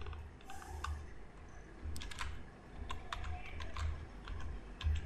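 Typing on a computer keyboard: an irregular run of key clicks as text is deleted and a new word typed in.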